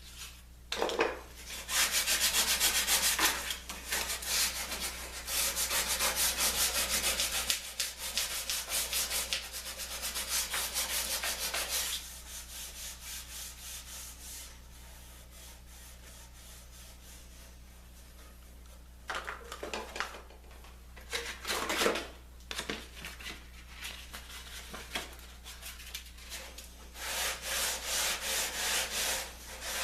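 Wood being sanded by hand with sandpaper: several bouts of quick back-and-forth scratchy strokes, with pauses between them, under a steady low hum.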